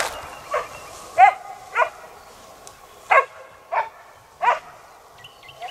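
Pig-hunting dog barking, about eight short barks with uneven gaps, some fainter than others: the sign that it has found and is baying a wild pig.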